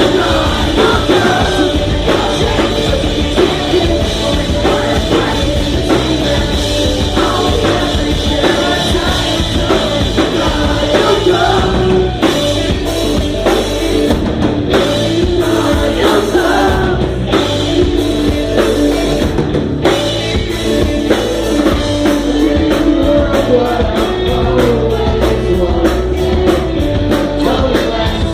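Rock band playing live, with a drum kit, amplified instruments and singing. The drumming gets busier and more regular about two-thirds of the way in.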